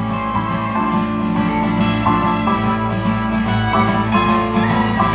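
A live country band plays an instrumental passage between sung lines. Guitar, pedal steel guitar and keyboard hold notes that step from one pitch to the next over a steady bass line, with a short rising slide near the end.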